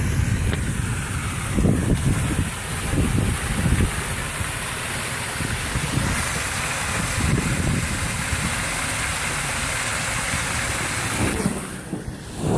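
Rainwater rushing into a curbside storm drain grate: a steady hiss of pouring water. Low wind buffeting on the microphone comes in the first few seconds.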